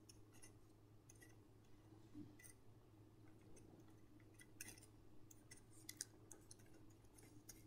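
Near silence with faint, scattered scratches and taps of a pen writing on paper, over a low steady hum.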